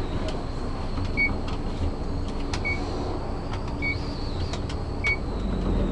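Otis elevator car travelling up: a steady low rumble of the ride, with a short high beep repeating about every second and a quarter and a few faint clicks.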